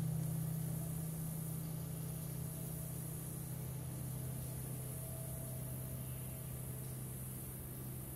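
A steady low droning hum that fades slightly over the seconds, with an even high-pitched hiss above it.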